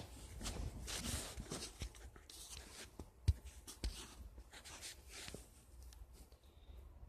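Faint rustling and scattered light clicks in a quiet room, with one sharper click about three seconds in.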